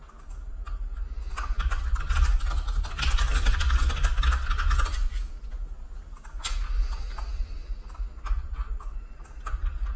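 Computer keyboard and mouse clicking at a desk, with a dense run of clatter from about one to five seconds in, then scattered clicks. A low rumble runs underneath.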